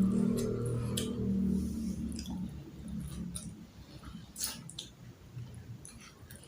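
Eating sounds: chewing with wet mouth clicks and smacks, scattered irregularly, the sharpest about four and a half seconds in.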